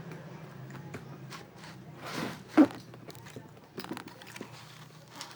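Close-up mukbang eating sounds: scattered wet mouth clicks from chewing donut. There is a brief noisy swell, then one loud short knock about two and a half seconds in.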